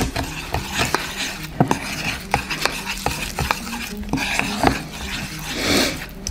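Metal spoon stirring powdered sugar and a little water into a glaze in a small bowl: a steady scraping with irregular clicks and taps of the spoon against the bowl.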